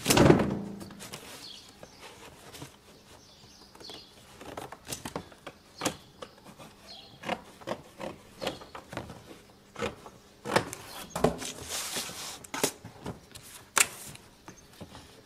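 Cardboard box being worked by hand into a ramp: a heavy thump at the very start, then scattered knocks, taps and scrapes of the cardboard.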